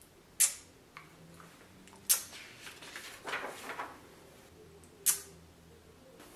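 Newspaper pages being handled and turned: three sharp crackles of the paper and a longer rustle in the middle.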